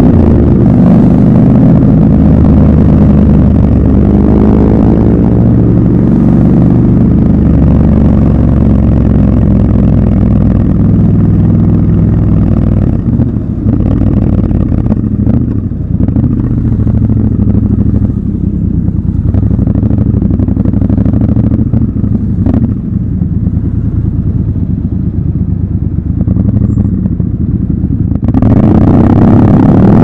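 Triumph Scrambler 1200 XC's 1200 cc parallel-twin engine running under way. It pulls for the first stretch, drops to a lower, quieter note through the middle, then picks up again near the end.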